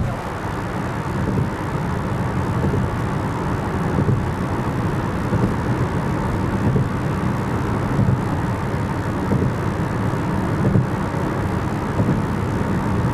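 A car driving at road speed, with a steady low drone of tyre and engine noise.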